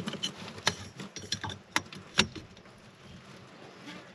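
Sharp clicks and clinks, about half a dozen in the first two and a half seconds and then quieter, from a collapsible crab pot being handled and set up.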